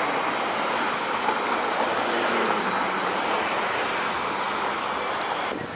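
Steady road traffic noise of cars driving past on a city street, which drops away abruptly near the end.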